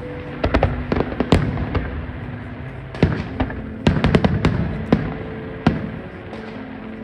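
Fireworks going off: many sharp bangs and cracks in quick clusters, about half a second to two seconds in, around three seconds, and densest from about four to five seconds. Steady background music plays underneath.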